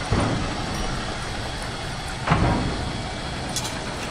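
Steam locomotive 8630, a JNR Class 8620, being turned on a railway turntable: a steady rumbling noise with two heavy thumps about two seconds apart.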